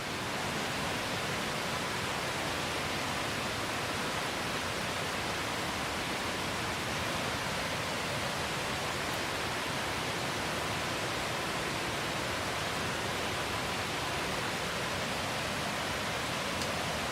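Steady heavy rain falling, an even hiss with no breaks.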